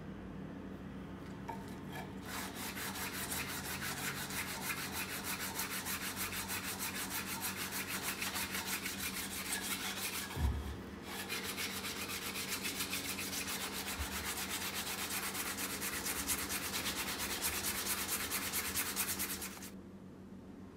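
Brush scrubbing a rusty steel karambit blade with rapid back-and-forth strokes. It runs in two long bouts, with a short break and a low thump about ten seconds in.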